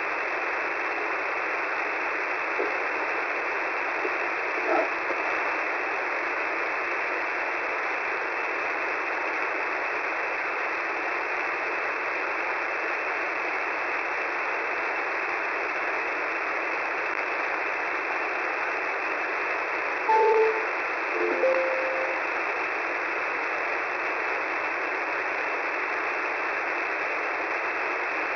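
Shortwave radio receiver tuned to 10755 kHz, giving steady static hiss through a narrow, telephone-like passband. A few faint, brief tones break through: a short wavering one about five seconds in, then a short beep and a couple of quick pitch-shifting tones around twenty seconds in.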